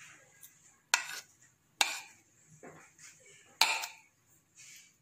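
A spoon clinking and scraping against a plate and a glass bowl as chopped tomato is spooned into the egg mix: three sharp clinks, about a second in, near two seconds and past three and a half seconds, with softer taps and scrapes between.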